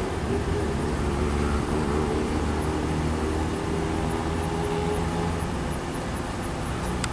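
Steady low rumble and hum of an approaching freight train's diesel locomotives, with a faint, rapid high ticking, about four a second.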